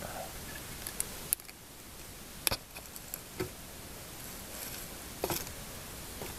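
A few scattered sharp cracks and knocks of dry sticks and twigs, irregularly spaced, the loudest about two and a half seconds in.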